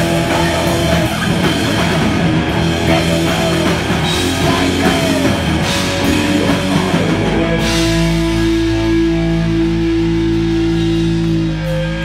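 Live hard rock band, with distorted electric guitars through Marshall amps and a drum kit, playing loud. About seven seconds in the drumming mostly stops and long held guitar notes ring on.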